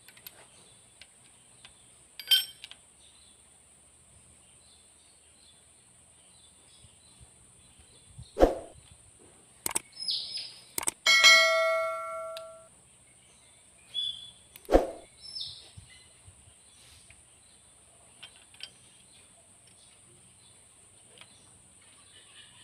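Steel hand tools clinking and knocking against the rocker arms and cylinder head of a six-cylinder diesel while the valve clearance is set. The sounds are a handful of sharp, scattered clinks, and one clang about 11 seconds in rings on for over a second.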